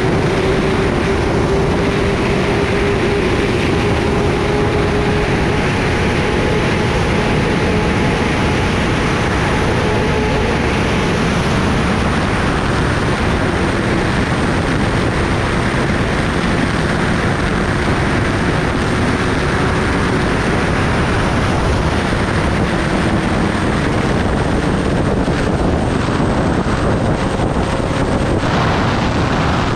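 Kawasaki Ninja ZX-10R's inline-four engine holding a steady note at highway cruising speed, under a constant rush of wind over the microphone. The pitch barely changes, shifting slightly near the end.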